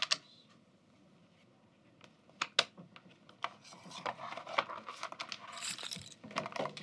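Casino chips clicking and clinking as a bet is placed on a live online blackjack table: scattered sharp clicks, then a denser run of clicks with a short chip clatter about five and a half seconds in.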